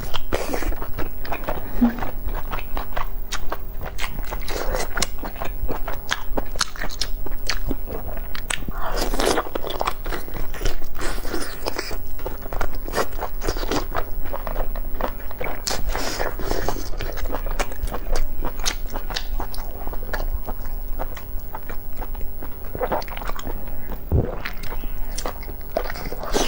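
Close-up eating sounds: biting and chewing soft braised pork intestine rolls. There is a steady run of wet mouth clicks, with a few louder bites now and then.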